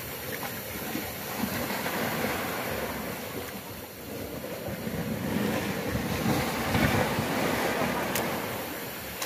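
Wind rushing over the microphone above small, choppy sea waves lapping, swelling louder twice and easing off.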